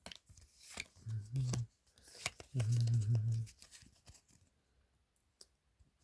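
Crinkling and clicks of a Pokémon booster-pack foil wrapper and cards being handled. Two short, low hums from a person break in at about one second and two and a half seconds in.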